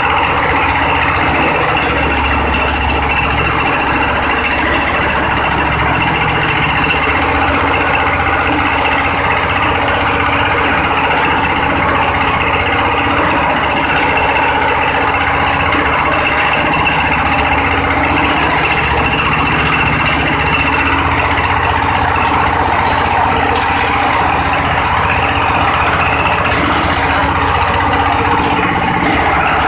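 Coconut-husk coir shredding machine running steadily, a loud continuous mechanical din.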